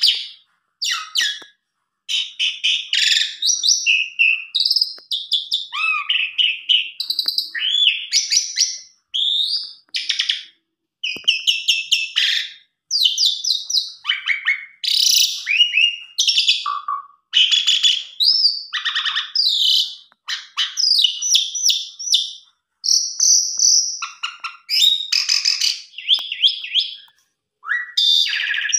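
Javan pied starling (jalak suren) singing a long, varied song of loud chirps, whistles and rattling trills in quick phrases separated by short pauses.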